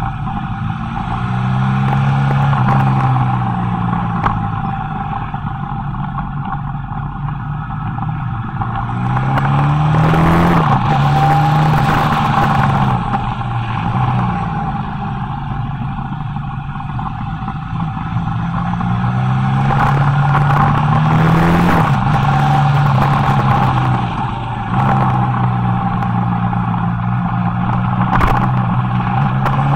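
Motorcycle engine heard from an onboard camera on a mountain descent, its pitch climbing and dropping back several times as the rider opens and closes the throttle through the bends. A rush of wind on the microphone swells and fades with speed.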